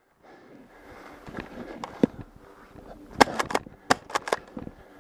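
Footsteps crunching on dry ground and brush, with a quick run of sharp cracks a little over three seconds in.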